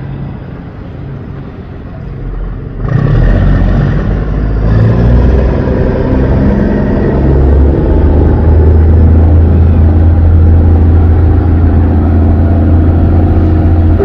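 Yanmar 829 marine diesel boat engine running. About three seconds in it is opened up and gets much louder, its pitch climbing in a few steps before it holds a loud, steady drone at high revs.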